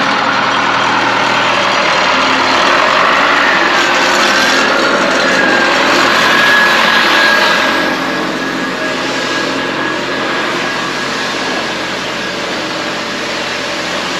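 Engine running steadily with a high whine over it; the whine wavers in pitch about three seconds in, then holds level and fades out near ten seconds.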